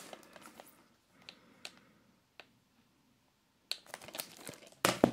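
A Blu-ray steelbook case being handled and turned over in the hands: faint rustling and a few light clicks, then livelier clicks and rustling in the last second and a half, ending in one sharper knock.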